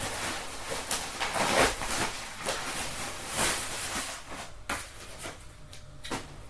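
Rustling and scraping of packaging as chair parts are taken out of the box, a run of irregular rustles that thins out after about four and a half seconds into a few light clicks and knocks.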